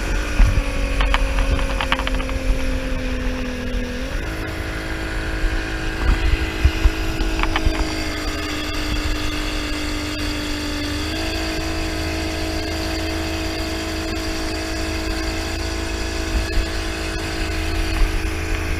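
Speedboat engine running steadily under way, its pitch stepping up twice, about four and eleven seconds in, over a continuous low rumble.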